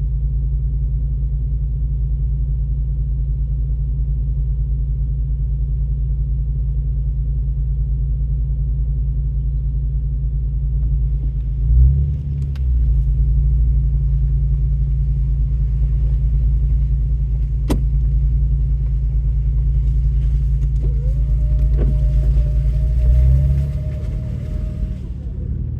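Off-road truck's engine running with a steady low rumble, heard from inside the cab. It picks up about halfway through and eases off near the end, with a sharp click partway and a brief steady whine near the end.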